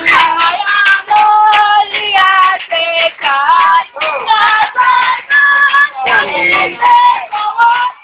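High voices singing a slow melody, held and gliding notes phrase after phrase with short breaths between them.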